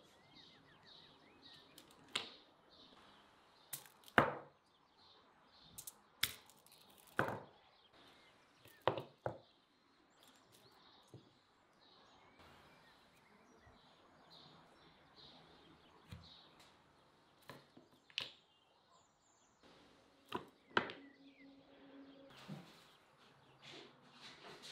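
Knife chopping on a cutting board in irregular single strikes, about a dozen sharp knocks with a pause of several seconds in the middle.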